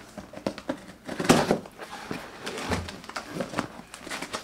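A shipping package being opened and handled by hand: scattered knocks, scrapes and rustles of the packaging, with one louder knock a little over a second in.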